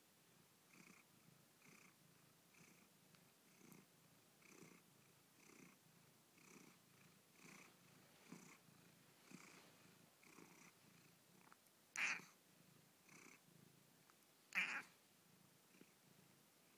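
Angora cat purring faintly, the purr swelling and fading about once a second with her breathing. Near the end come two short, much louder sounds a couple of seconds apart.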